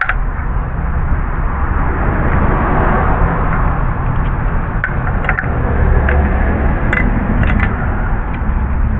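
Steady rushing background noise that swells a little in the middle. A few light clicks and taps from handling parts come about five seconds in and again near seven seconds.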